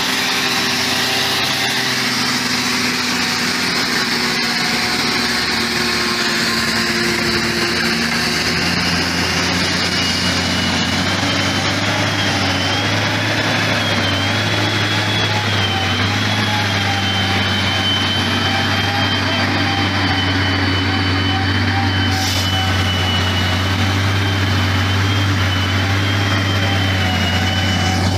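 Engine of logging machinery running steadily, with a thin high whine that wavers slightly in pitch; a low hum grows stronger about eight seconds in.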